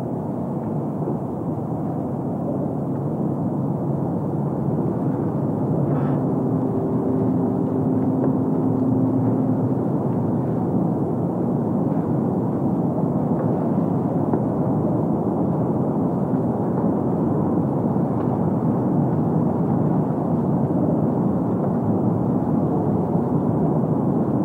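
Experimental ambient piece built from field recordings and synthesizer textures: a dense, muffled rumble of noise that grows slightly louder over the first several seconds. About six seconds in come a faint click and two low steady tones that hold for a few seconds.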